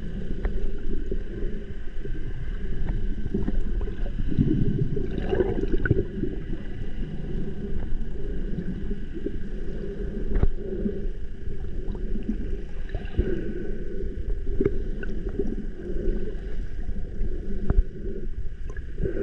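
Muffled underwater water noise picked up by a camera held just below the surface: a steady low rumble and sloshing with scattered small clicks.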